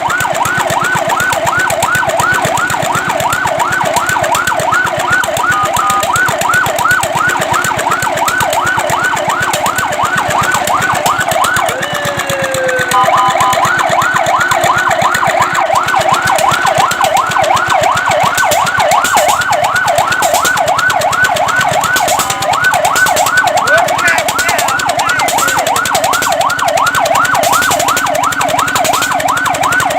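Fire truck siren sounding a fast yelp, its tone sweeping up and down about four times a second. About twelve seconds in, the yelp breaks off briefly with a falling tone, then starts again.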